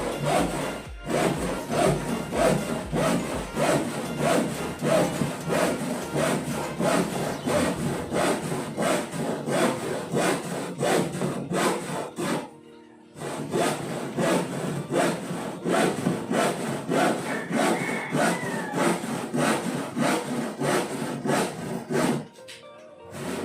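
A handsaw cutting wood, with steady back-and-forth strokes about two or three a second, pausing briefly twice.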